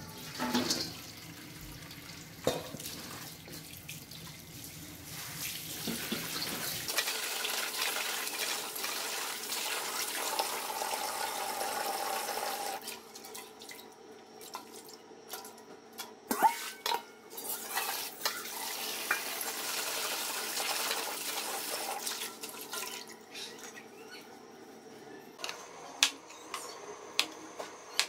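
Tap water running into a stainless steel bowl and splashing as bean sprouts are rinsed, stopping and starting again. A few sharp knocks come near the end.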